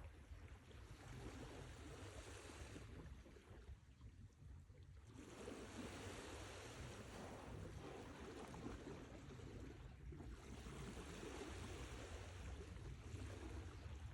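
Sea waves washing in and drawing back, faint: the surf eases a few seconds in, swells again about five seconds in, dips briefly near ten seconds and builds once more, over a steady low rumble.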